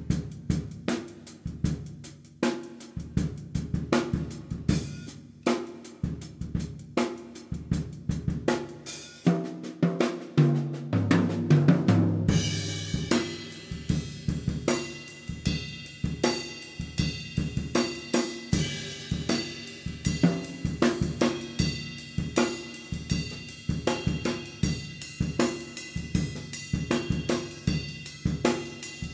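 Drum kit playing a busy, steady groove on hi-hat, cymbals, snare and bass drum. About ten seconds in, a fill runs down the toms, falling in pitch.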